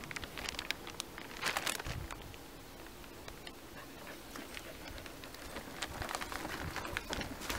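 Fabric insulated cover with a reflective lining rustling and crinkling as it is pulled down over a portable fridge freezer and tugged into place, with scattered light clicks and taps. The rustling is strongest in the first two seconds and again near the end.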